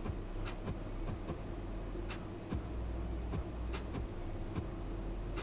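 Trading cards being handled and flipped through, giving irregular soft clicks and ticks about once or twice a second over a steady low hum.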